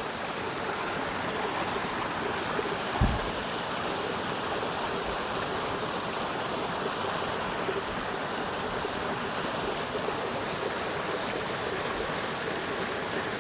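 Steady rush of a waterfall, falling water making an even hiss. A brief low thump about three seconds in.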